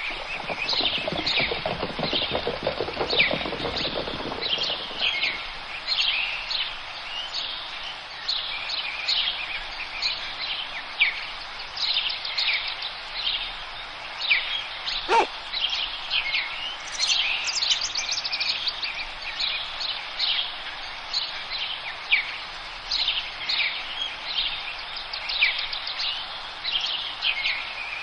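Forest birdsong: many birds chirping and overlapping, each call a short falling note. A lower pulsing sound fades out over the first few seconds, and a single falling whistle comes about halfway through.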